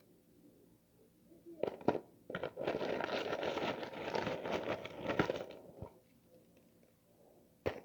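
Freezer frost crunching: two sharp crunches a little before two seconds in, then about three seconds of dense crackling crunch, then one sharp crack near the end.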